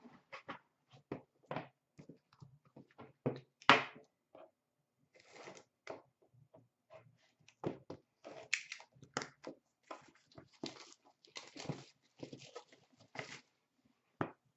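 Trading-card boxes being handled and slit open with a blade: scattered knocks and clicks of cardboard, with a few short stretches of scraping and tearing as the seal is cut.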